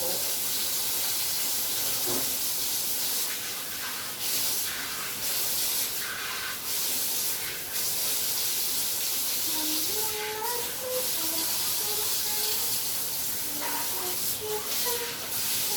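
A steady hiss, with faint voices now and then in the background.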